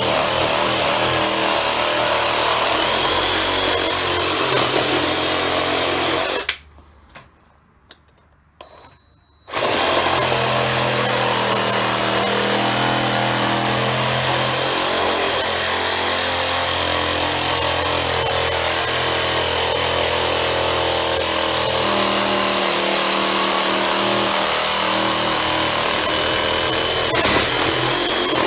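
BLACK+DECKER BDCR18N 18 V cordless reciprocating saw cutting through a thick pressure-treated wooden post with its wood blade. The saw stops for about three seconds a few seconds in, then starts again and runs steadily until it cuts off near the end.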